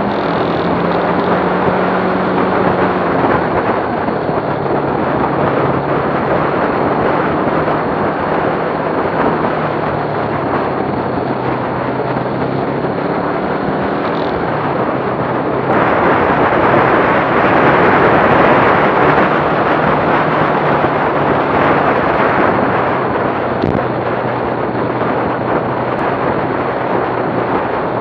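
Motorcycle engine running at road speed, its steady drone buried under heavy wind rush on a bike-mounted camera microphone. The rush steps up suddenly about sixteen seconds in.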